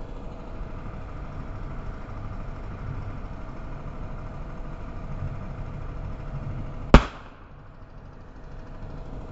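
A single sharp bang from an airsoft MLAW launcher firing, about seven seconds in, over a steady background hum.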